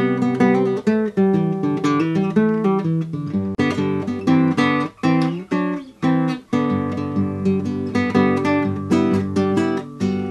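Theme music played on acoustic guitar: quick strummed and picked chords, with a last chord ringing out and fading near the end.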